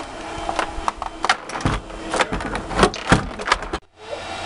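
Irregular plastic clicks and knocks from a computer keyboard and its cable being handled and plugged in, over a faint steady hum from the running computer.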